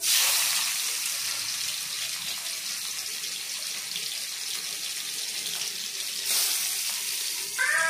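Raw shrimp dropped into hot mustard oil in a metal kadai, sizzling at once with a sudden loud hiss that holds steady. The sizzle swells again about six seconds in as the shrimp are turned with a spatula.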